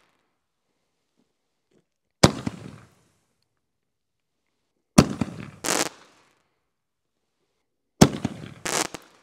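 Legend Fireworks Ground Zero mine shells firing from a mortar tube: three sharp bangs about three seconds apart, each the lift charge throwing stars straight out of the tube with no aerial break, and each trailing off in crackle. The last two are followed under a second later by a second short burst.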